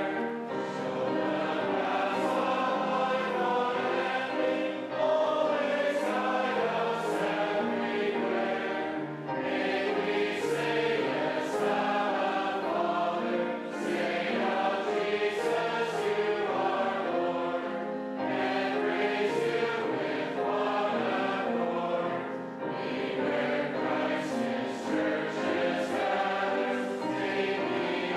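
A church congregation singing a hymn together, many voices in a slow, steady tune. The singing dips briefly between lines about every four seconds.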